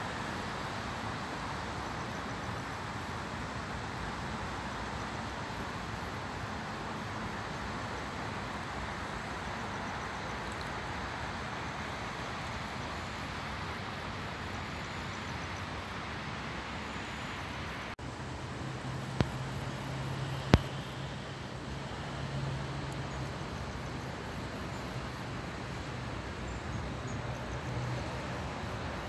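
Steady outdoor night ambience of distant city road traffic. A low steady hum joins about two-thirds of the way through, and two sharp clicks come shortly after it.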